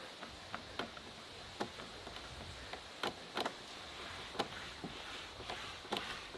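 Scattered light clicks and knocks, irregular, about two a second, over a faint steady high-pitched hiss.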